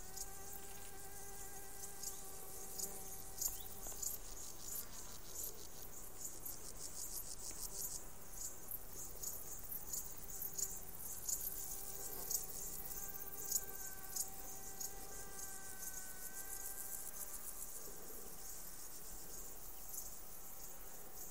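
Meadow crickets and grasshoppers chirping in rapid, high-pitched pulses, with a flying insect's steady buzzing hum coming and going.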